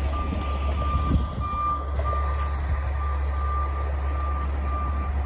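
Truck's reversing alarm beeping steadily at about two beeps a second, over a steady low rumble.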